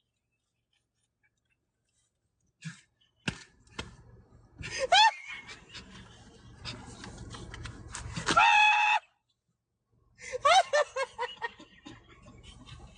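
A woman's high-pitched, squawking laughter that sounds like a parrot. It starts after a few clicks with a squeal, then a longer held shriek, and after a short pause a quick run of rising shrieks.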